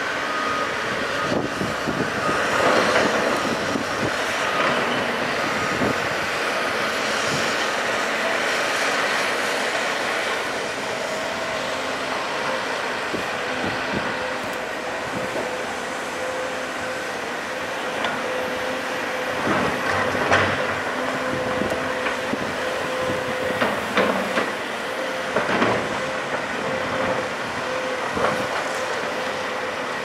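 Hydraulic excavator's diesel engine and hydraulics running steadily as it swings and loads rock into an articulated dump truck. In the second half there are several clanks and thuds as rock drops into the truck's steel bed.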